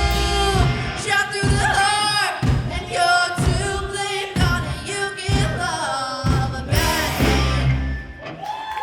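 Live rock band with a lead singer: drums, bass and guitar hit together in short stabs about once a second under the sung line. The song ends on one full held chord about seven seconds in, which cuts off near the end.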